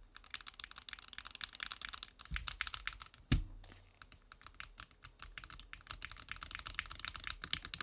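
Keys of a Win60 HE keyboard being typed on in quick runs of clicks, with one louder, deeper thump a little over three seconds in.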